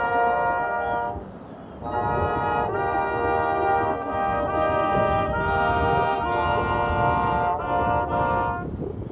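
Brass band playing a slow piece in long held chords, with a phrase break about a second in and another near the end.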